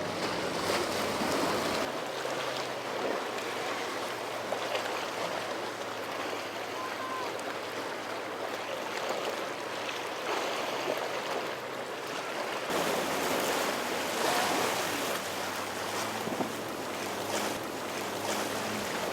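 Rough sea water and waves churning with wind on the microphone, and a boat engine running low and steady underneath. The sound shifts abruptly about two seconds in and again around thirteen seconds, the water noise getting louder after the second change.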